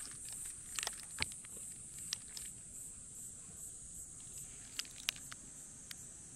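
Steady high-pitched insect chirring, with a few small clicks and rustles scattered through it, the sharpest about a second in and again near five seconds.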